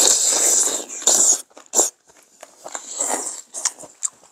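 Noodles of hand-cut kalguksu being slurped from soup: a long, loud slurp through the first second and a half, then shorter slurps about two and three seconds in, with small mouth clicks of chewing between.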